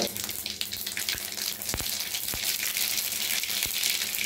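Mustard and cumin seeds sizzling and crackling in hot oil in a kadai, with a few sharper pops: the tempering (thalippu) stage.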